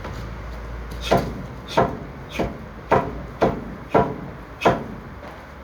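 Repeated hand strikes on a hardwood makiwara striking post: seven sharp hits, about one every two-thirds of a second, starting about a second in.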